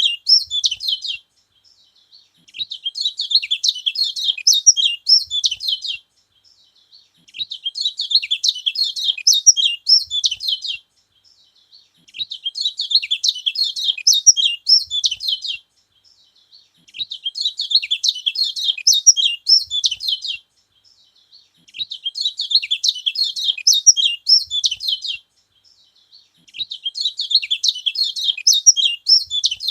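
Kecial kuning, a small yellow white-eye, singing bouts of fast, high twittering about four seconds long, each followed by a short pause, repeating at an even pace. This is the song that is said to rouse other kecial birds.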